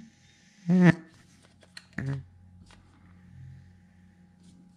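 Fuel tank vent valve buzzing as air is blown through it by mouth along its hose: a sharp click at the start, then a short, loud pitched buzz about a second in and a shorter, weaker one at two seconds. The valve passing air this way shows it is still working.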